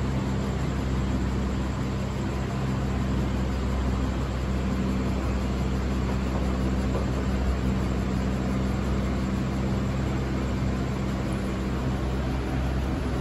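Steady mechanical hum with an even rushing noise over it, unchanging throughout.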